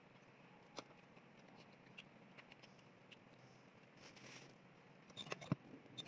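Quiet eating sounds: a few soft clicks of chewing and utensils on a bowl of instant noodles, with a short cluster of sharper clicks about five seconds in.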